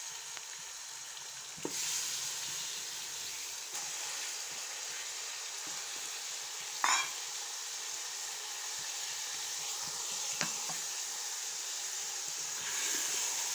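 Raw chicken pieces sizzling in hot oil with fried onions in a cooking pot, a steady hiss that gets louder a little under two seconds in as more chicken goes in. A brief sharp clink about seven seconds in is the loudest sound.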